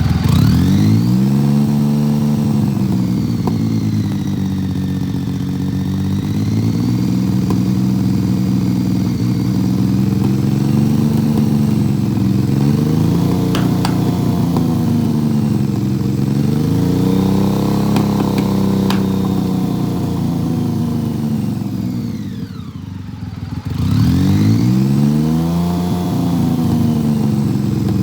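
BMW K75's three-cylinder engine, misfiring, being revved up and down over and over. About 22 seconds in the revs sag almost to a stall, then pick up again.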